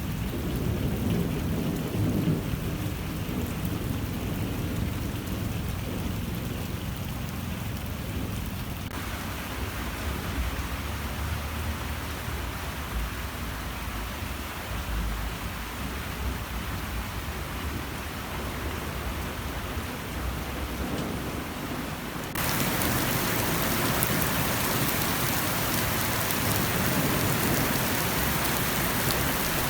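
Steady rain falling, an even hiss with a low rumble in the first few seconds. About two thirds of the way in the rain sound suddenly turns louder and brighter.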